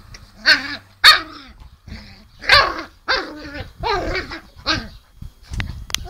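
Bernese mountain dog puppy giving a string of about six short, high barks and growls in rough play.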